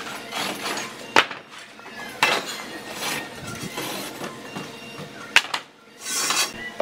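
Steel trowel working cement mortar, clinking against the mortar pan and scraping as mortar is scooped and spread on a concrete ledge. There are several sharp clinks, the loudest a little past five seconds in, and a brief scrape near the end.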